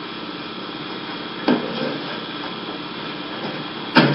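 Two sharp knocks about two and a half seconds apart, the second louder, over a steady hum.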